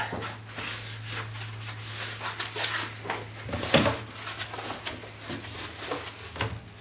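Foam packing blocks and a laptop's fabric sleeve rubbing and rustling against a cardboard box as they are lifted out, with a firmer knock a little over halfway through.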